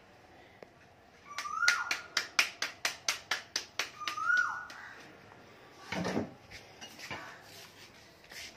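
Hands slapping a ball of roti dough flat between the palms: about a dozen quick, sharp slaps, some five a second, from about one and a half to four seconds in. A falling whistled call sounds twice behind them, and there is a brief rustle about six seconds in.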